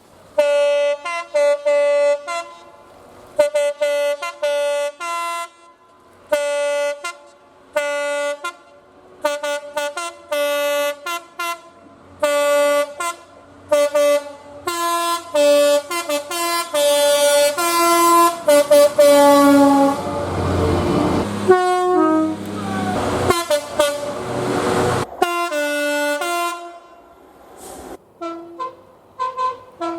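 British train horns sounded again and again in quick short blasts that switch between a high and a low note, like drivers playing the two tones. About twenty seconds in, a passing train's running noise joins in, with horn notes that fall in pitch, and then the short two-tone blasts start again.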